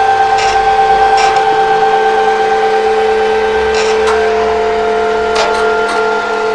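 Office printer-scanner stepper motor whining in several steady tones, the pitch shifting about four seconds in as the mechanism changes speed, with occasional clicks from the moving parts.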